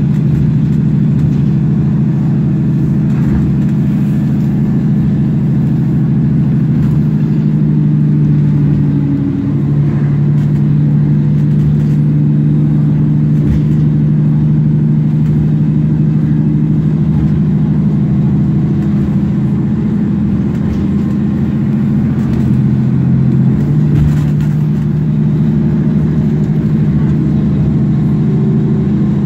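Cummins ISL inline-six diesel of a 2009 Nova Bus LFS running under way, heard from inside the bus as a loud, steady drone. Its pitch steps twice, about nine seconds in and again about two-thirds of the way through.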